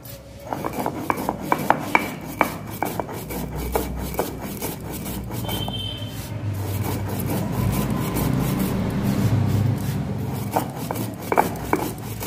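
A stone roller (nora) is rubbed and rolled over a flat shil grinding stone, crushing dry-roasted cumin seeds and cardamom. It makes a grinding rasp with scattered sharp clicks of stone on stone and seed, the clicks thickest in the first few seconds and again near the end, and a steadier rumble in between.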